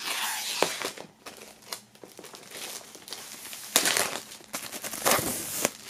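Clear plastic shrink-wrap film being peeled off a cardboard vinyl LP sleeve and crumpled, crinkling and crackling in bursts, with louder crinkles about four and five seconds in.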